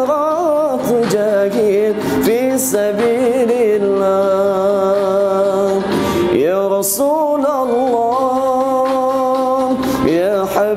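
Man singing an Arabic sholawat in praise of the Prophet in long, drawn-out notes that slide in pitch, pausing for breath about six seconds in and again near the end.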